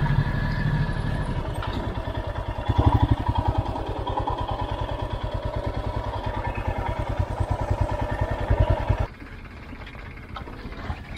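Royal Enfield Himalayan's single-cylinder engine running at low revs as the bike creeps up and stops, with a short burst of throttle about three seconds in. The engine cuts off suddenly about nine seconds in, switched off.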